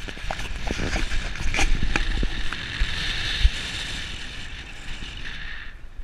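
Car driving along a city street, heard by a camera just outside the passenger window: steady wind and road hiss, with sharp knocks and rattles of the camera in the first couple of seconds. The hiss drops away suddenly near the end.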